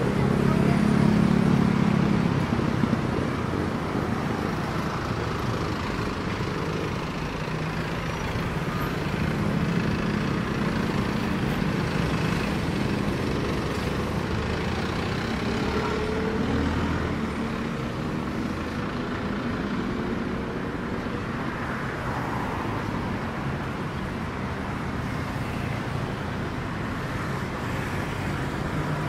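Street traffic: a steady wash of road noise with vehicle engines passing, loudest in the first couple of seconds and again about ten seconds in.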